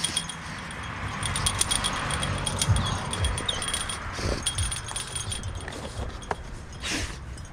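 Wind chimes tinkling: many small high clicks and ringing tones throughout, over a soft background rustle.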